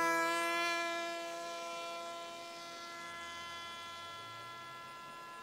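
Electric motor and propeller of an RC Superman flying model whining steadily in flight, the pitch dipping slightly near the start and the sound fading over the first couple of seconds as it flies away.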